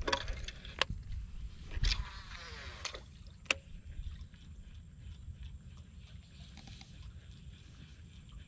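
Cast with a baitcasting reel: the spool whirs as the line pays out, falling in pitch as it slows, and a sharp click comes about three and a half seconds in. Then only a low, steady background.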